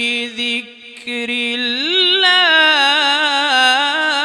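A man's solo voice chanting Quran recitation in a melodic style: a held low note that breaks off under a second in, then after a short pause the voice rises to a higher pitch and holds it, wavering through ornamented turns.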